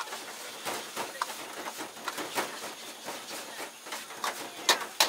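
A metal ladle scraping and knocking against a wok as egg fried rice is stir-fried and tossed over a gas burner, with a steady frying hiss underneath. It makes frequent short clicks, and two louder knocks come near the end.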